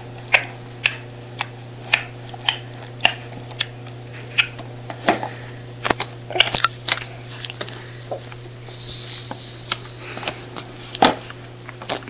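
A six-month-old baby making tongue clicks with his mouth, about two a second at first and then more irregular, with a stretch of breathy hissing a little past the middle.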